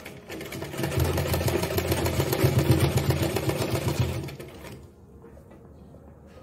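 Domestic sewing machine stitching lace onto a blouse neckline: it picks up speed within the first second, runs fast and steady, then slows and stops about four and a half seconds in.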